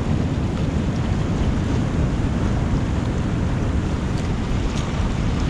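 Steady wind rumbling on the microphone over sea surf washing against the rocky shore.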